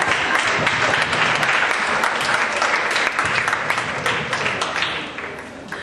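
Audience applauding with dense clapping that dies away near the end.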